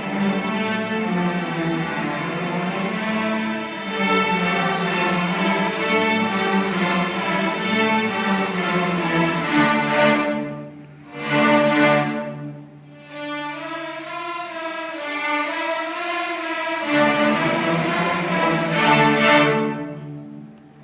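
School string orchestra of violins and cellos playing slow, sustained chords, closing the piece on a held final chord that fades away near the end.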